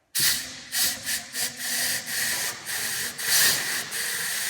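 Compressed air blowgun blowing the leftover flush water out of a truck engine's cooling system: a loud hiss in short spurts at first, held steady from about four seconds in.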